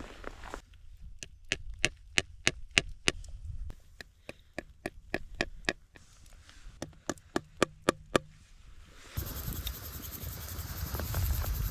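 A quick run of sharp knocks or chops, about three a second, then a steady hiss from about nine seconds in.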